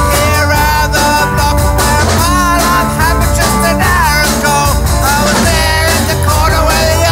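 Rock music with a singing voice over steady bass and drums.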